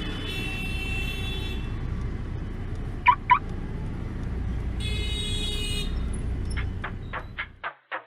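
A steady low rumble, cut twice by about a second of high ringing tones, with two short loud chirps about three seconds in. Near the end the rumble stops and a rhythmic pulsing beat begins, about three pulses a second.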